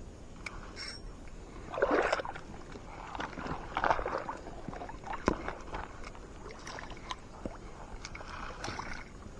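Water sloshing and splashing in irregular surges, with a few sharp clicks, the loudest about five seconds in.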